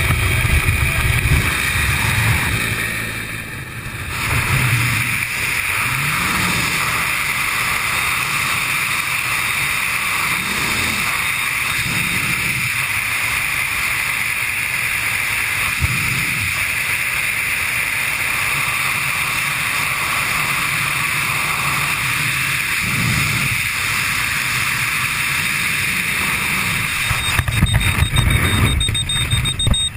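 Bell UH-1 Huey helicopter running at the open cabin door for the first few seconds. Then, once the wingsuit jump is made, a steady rush of freefall wind over the helmet camera, swelling now and then in low gusts. The wind grows louder and more buffeting in the last few seconds.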